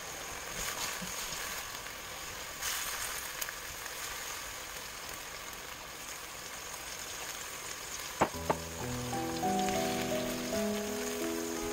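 Lotus root slices in soy-sauce braising liquid sizzling steadily in a wok. Two sharp clicks come about eight seconds in, followed by light background music with simple plucked notes.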